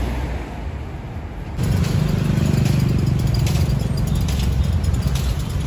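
Street traffic: a motor vehicle's engine rumbling low and steady, louder from about a second and a half in, with scattered light knocks as coconuts are handled on the cart.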